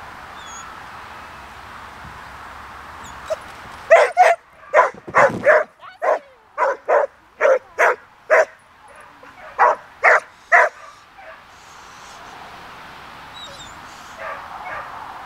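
Border Collie barking, about fourteen short, sharp barks in quick runs, starting about four seconds in and stopping a few seconds before the end.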